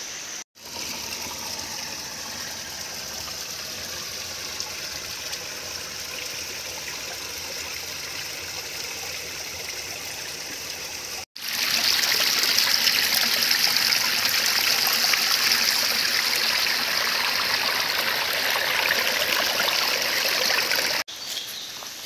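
Waterfall running thin, its water splashing down over rocks in a steady rush. About halfway through it becomes a louder, brighter spatter of water falling close by onto rock.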